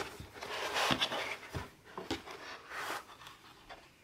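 Cardboard box packaging and the laptop's soft wrap rustling and scraping as hands move them, with a few light knocks. The handling dies down near the end.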